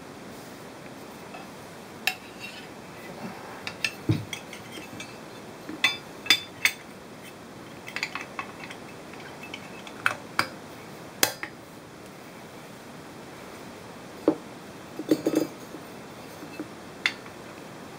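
Metal parts of a wall mount clinking and knocking as they are handled and fitted together: a dozen or so scattered sharp clicks and clanks, with a short cluster about three-quarters of the way through.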